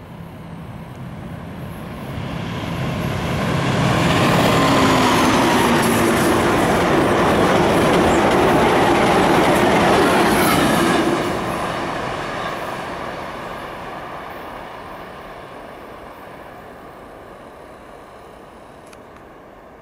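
Amtrak Cascades train passing, led by a WSDOT Siemens Charger diesel locomotive. The locomotive's engine note builds over the first few seconds and drops in pitch as it goes by. The wheels of the low Talgo coaches then run past loudly for several seconds before the sound drops off and fades as the train recedes.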